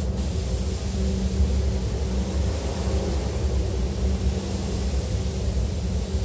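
Steady low drone of a spray booth's ventilation running, with a constant high hiss from a compressed-air spray gun in use. The hiss drops out for a moment right at the start.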